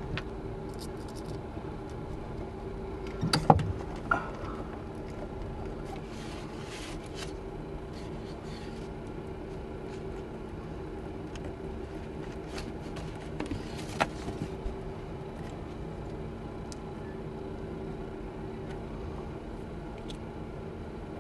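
Hands handling heavy electrical cables and wiring hardware: a loud clunk about three and a half seconds in, then scattered clicks and scrapes, the sharpest about fourteen seconds in. A steady low hum runs underneath.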